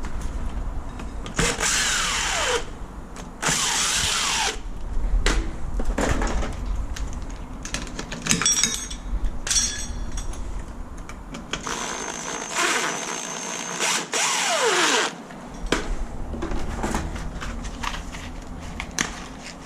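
Cordless drill-driver run in several short bursts, each ending in a falling whine as the motor spins down, with clicks and knocks between; its screws are being worked to set a mortise lock back in an aluminium door.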